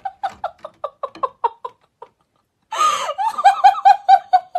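A woman laughing in quick, evenly paced bursts: a quiet giggling run, a short pause, then a louder fit of laughter starting near three seconds in.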